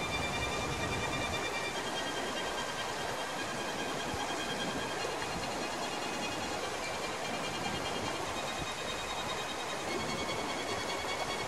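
Shallow mountain stream flowing over stones: a steady rushing hiss.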